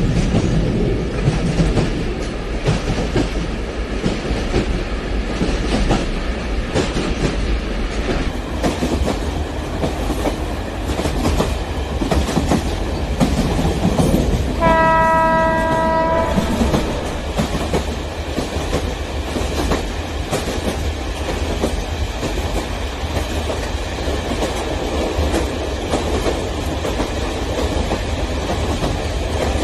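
Train running along the track with a steady rumble and wheel clatter. A single horn blast of about two seconds sounds about halfway through.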